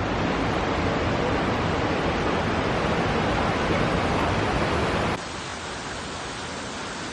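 Waterfall rushing steadily into its pool. About five seconds in the sound cuts to a quieter, more distant rush.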